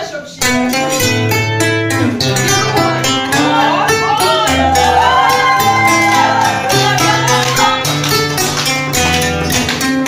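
Acoustic guitar strummed fast and rhythmically, with the chords changing about every second. Through the middle, a high, wavering voice sings or calls out over it for a few seconds.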